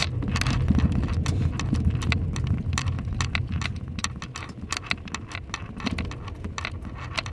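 Car rolling slowly over a cobblestone street, heard from inside the cabin: a low rumble with a dense, irregular run of sharp clicks and knocks from the tyres on the stones.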